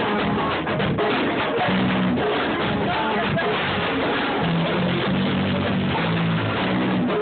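Hip hop beat playing, with drums, a bass line and a guitar sample, distorted through a phone's microphone.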